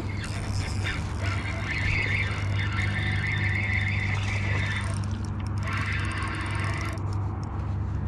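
Wind rumbling steadily on the microphone while a fishing reel is wound in, its higher rasping whir from about two to four seconds in, followed by a run of quick clicks.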